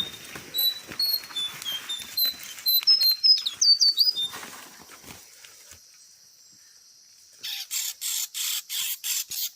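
Bird chirping: a quick series of short, high chirps that ends in a few sharper notes sliding up and down. Near the end, a run of raspy pulses starts up, about four a second.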